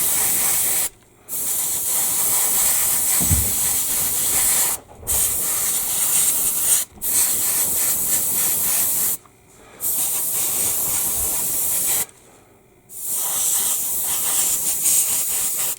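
Airbrush spraying acrylic paint, a steady hiss of air and paint that stops briefly five times as the trigger is let off and pressed again.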